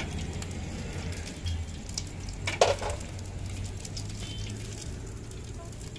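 Gas stove burner burning steadily under a wok, with one sharp clank of metal cookware about two and a half seconds in.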